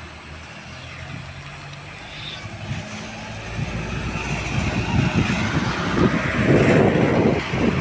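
A motor vehicle approaching and passing close by: a low engine rumble that grows steadily louder through the second half and peaks near the end.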